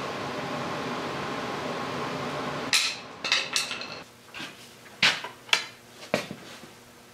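A steady mechanical hum cuts off suddenly, then about seven sharp, ringing metal-on-metal clanks follow over the next few seconds: a steel bar striking and levering at the threaded end cap of a CAT 225 excavator's boom hydraulic cylinder as it is worked loose.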